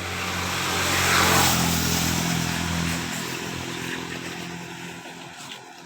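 A motor vehicle passing by: its engine swells to its loudest about a second in, then fades away.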